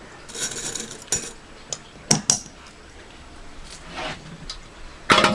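Tomato passata being filled from a measuring cup into small glass bottles. A soft pouring sound comes about half a second in, then a few sharp clinks of the cup and glass, and a louder knock near the end.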